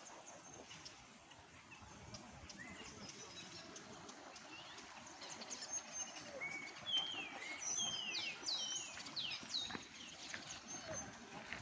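Small songbirds chirping and twittering in quick short notes and falling whistles, busiest in the second half, over a faint outdoor hiss.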